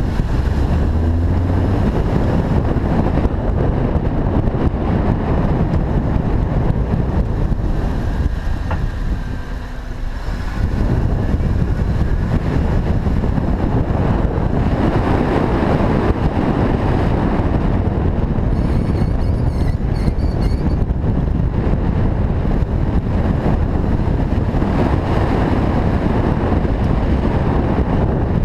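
Acura RSX on the move: steady road and wind noise, with a brief dip in loudness about ten seconds in.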